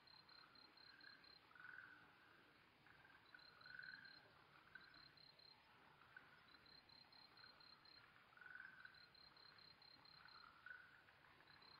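Faint evening chorus of Okinawa tree frogs giving irregular short calls, with a cricket repeating short trains of rapid, evenly spaced high-pitched pulses every couple of seconds.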